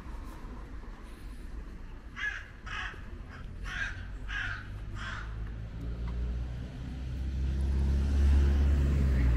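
A crow cawing, a run of about six short harsh calls half a second or so apart. Underneath is a steady low traffic rumble that grows louder near the end as a vehicle approaches.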